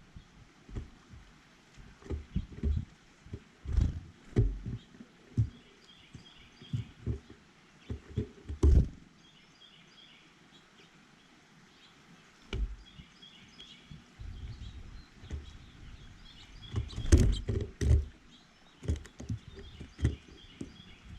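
Irregular low thumps and knocks, loudest about nine seconds in and again around seventeen to eighteen seconds, with faint, short, high bird chirps scattered between them.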